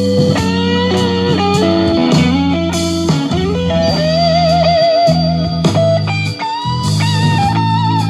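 Blues-style guitar music over a steady bass line, with a held, wavering guitar note in the middle, played back through a Bose Home Speaker 300 smart speaker.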